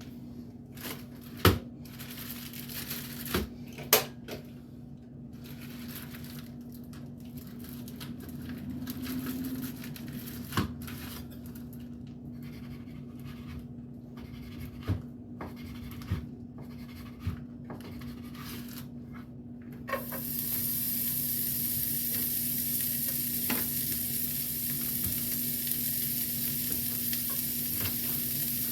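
Kitchenware clinking and knocking for about twenty seconds, then bacon starts sizzling in a hot frying pan and keeps up a steady sizzle, with a low hum underneath throughout.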